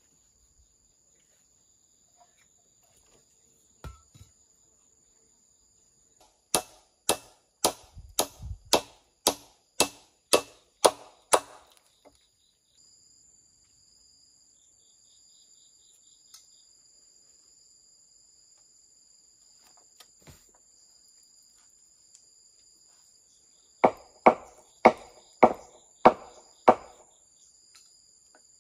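Hammer blows on a wooden pole rail, about two strikes a second: a run of about a dozen, then after a long pause a second run of about six near the end. A steady high insect drone sits under it.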